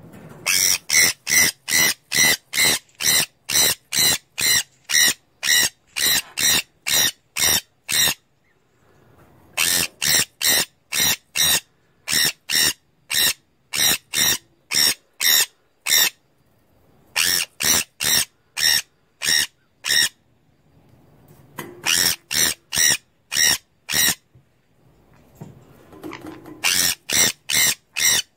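Sun conure screeching: long runs of loud, evenly spaced calls, about two or three a second, broken by short pauses of one to two seconds.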